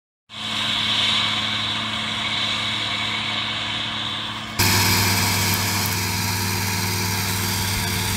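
Self-propelled forage harvester running steadily as it chops maize, then an abrupt cut a few seconds in to a John Deere tractor pulling a slurry tanker, its engine running steadily and a little louder.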